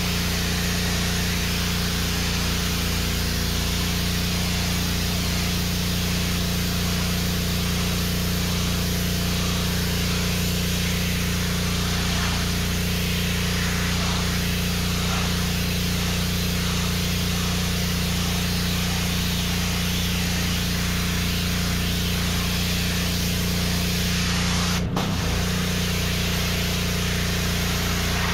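Pressure washer running steadily: a constant motor hum under the hiss of the high-pressure water jet spraying onto brick. A momentary break comes about 25 seconds in.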